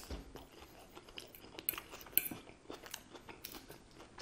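Close-up chewing and crunching of iceberg lettuce salad, with a metal fork clinking and scraping on the plate as it spears more leaves. Short crackly crunches and clicks come irregularly, the sharpest about two seconds in.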